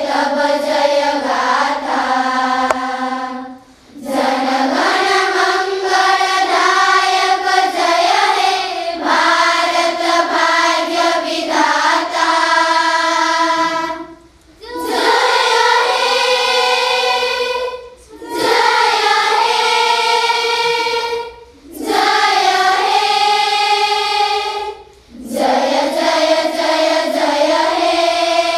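A group of children singing a song together, in sung phrases of a few seconds with short pauses between them.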